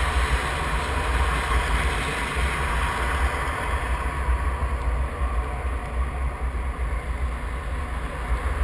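Steady low rumble and hiss of vehicle traffic.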